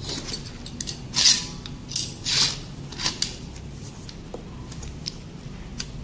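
Metal stabilizer parts and counterweights being handled, with a few short scrapes and clinks in the first half and fainter ticks after.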